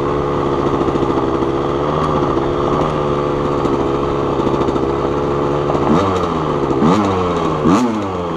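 1987 Suzuki RM125's single-cylinder two-stroke engine running at a steady speed, then revved up sharply three times near the end, each rev rising and dropping quickly. The clutch is slipping badly, barely grabbing at all.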